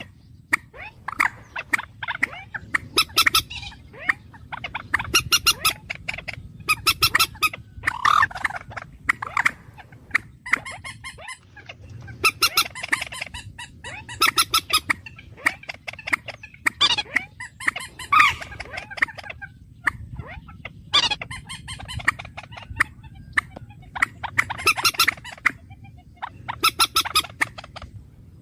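A bird calling over and over in loud runs of rapid notes with short pauses between them, a bird-call recording of the kind used to lure birds.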